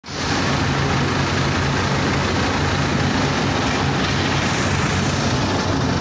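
Machinery of a plastic film recycling and washing line running: a steady, loud mechanical din with a low hum underneath.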